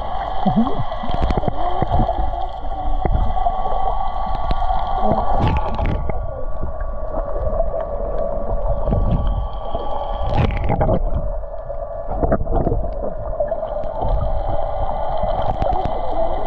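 Muffled underwater sound: a steady droning hum, most likely a boat engine carried through the water, with water sloshing and knocking against the camera housing.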